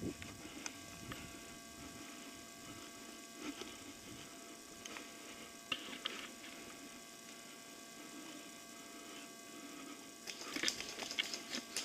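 Faint steady electrical hum made of several thin high tones, with a few light clicks. Near the end a quick, irregular run of louder clicks and rattles begins.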